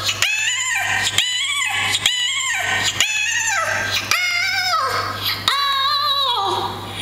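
Vinyl record played on a turntable and turned by hand, the stylus giving a repeating pitched phrase about once a second. Each repeat starts with a click and slides down in pitch at its end.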